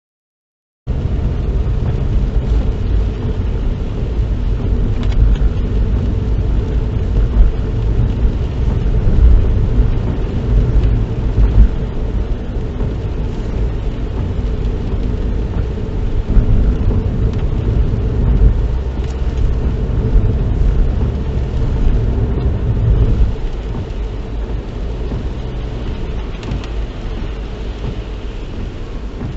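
A car being driven, heard from inside the cabin: steady low rumble of road and engine noise, which starts abruptly about a second in and eases a little in the last few seconds.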